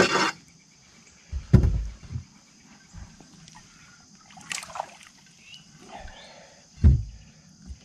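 Dull thumps against a bass boat's deck and hull and a brief splash as a hooked bass is reached for over the side and lifted aboard by hand. The loudest thumps come about a second and a half in and again near the end.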